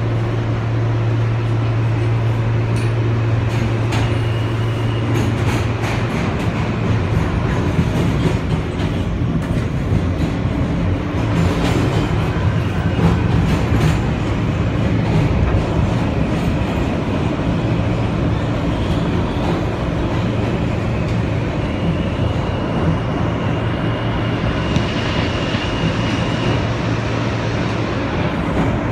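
New York City subway train heard from inside the car while running through a tunnel: a steady loud rumble with scattered clicks of the wheels over the rails. A thin high squeal of the wheels on the rails comes in near the end.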